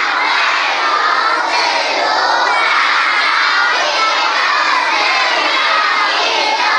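A large crowd of schoolchildren reading a multiple-choice quiz question aloud together in unison: a loud, continuous chorus of children's voices.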